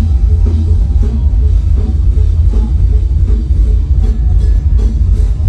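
Loud music with a heavy, steady bass.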